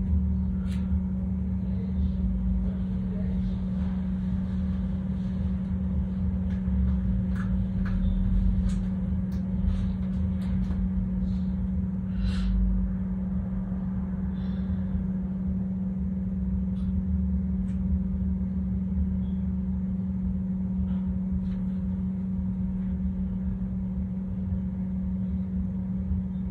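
Steady low drone and rumble, with scattered light clicks and rustles that come thickest around the middle.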